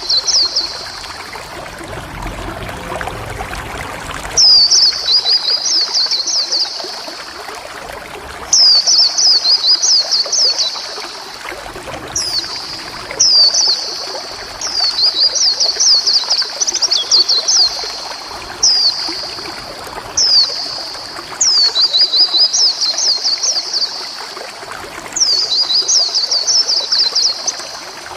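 Pleci (white-eye) singing: bursts of high, rapid, sweeping chirps, each a second or two long, repeated every few seconds with short pauses. A steady watery hiss like trickling water runs underneath.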